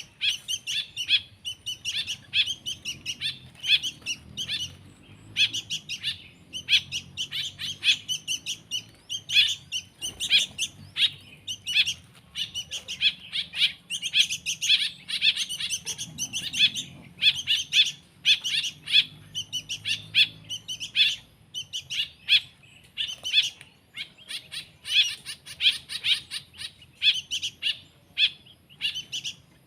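Baby songbird chicks chirping in fast, high, repeated begging calls, several a second with brief pauses.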